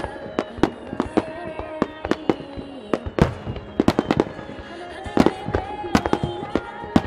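Aerial firework shells bursting in a rapid, irregular string of sharp bangs, with music playing underneath.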